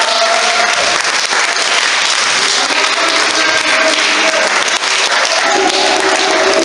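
A group of dancers applauding, many hands clapping together in a dense, steady patter with no set beat.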